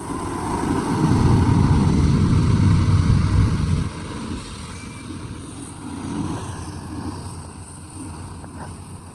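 Heavy earthmoving machine's diesel engine running under load, with a loud low rumble that drops off abruptly about four seconds in, then continues at a lower, uneven level.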